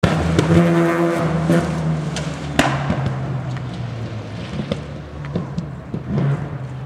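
Mazda RX-7 rally car's rotary engine running hard as the car speeds past, its note fading as it draws away, with a few sharp clicks over it.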